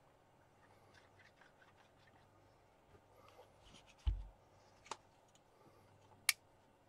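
Quiet tabletop handling: faint rubbing, then a low thud about four seconds in as the flat magnetic-field viewer is set down on the table, followed by two sharp clicks about a second and two seconds later.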